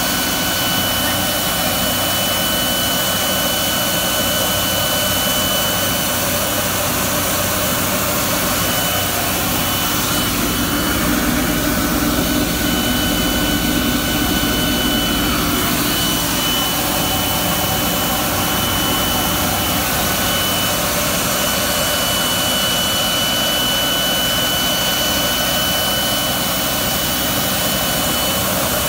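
High-speed vortex plastic pulverizer running steadily while grinding plastic scrap, an even machine roar with a steady high whine through it.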